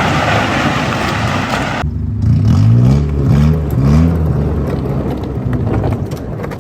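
Steady road and wind noise, then after an abrupt change about two seconds in, a car engine revved three times in quick rising pulls, trailing off toward the end.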